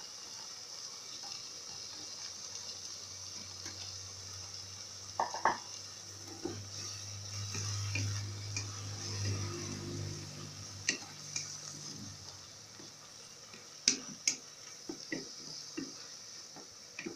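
Bulgur and tomato sauce sizzling in a pot as it is stirred with a wooden spatula, with sharp knocks of the spatula against the pot now and then, a pair about five seconds in and another near fourteen seconds. A low hum runs from about three to twelve seconds in.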